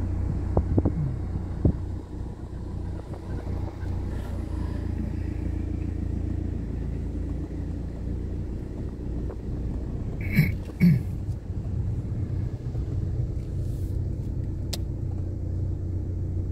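Steady low rumble of a car's engine and tyres heard inside the moving car's cabin. There are a few short knocks in the first two seconds, and two louder knocks a little past halfway.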